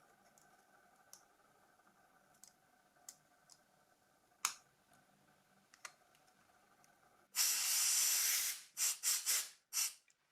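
Scattered light clicks of small parts being handled. Then, about seven seconds in, a loud hiss lasting over a second, followed by three short hisses.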